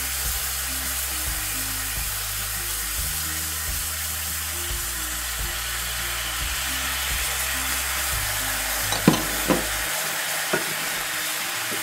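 Scallops sizzling in a hot pan of oil, lemon juice and maple syrup: a steady frying hiss. A few sharp clicks of a utensil against the pan come near the end.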